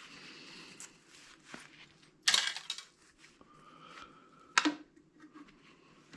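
Metal hard-drive parts clinking and tapping as they are handled, with two sharp clinks, one a little over two seconds in and another about two seconds later, among fainter taps.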